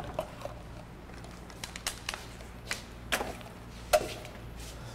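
Scattered light knocks and clinks of bottles and utensils being handled on a kitchen counter, a few irregular taps about a second or so apart, over a low steady hum.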